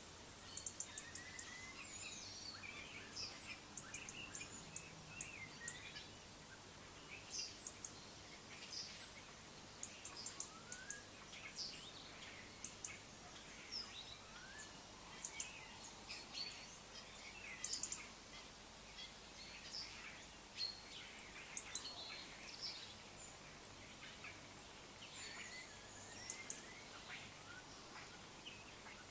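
Small birds chirping and calling throughout, many short high chirps and quick twittering notes, over a faint steady background hiss.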